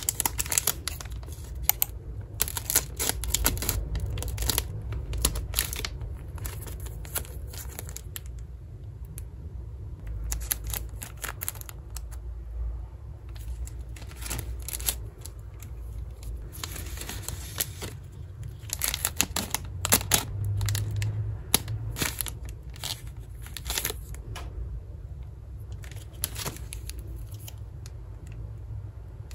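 Wafer packaging being handled and torn open: crinkling and tearing in irregular bursts with short pauses.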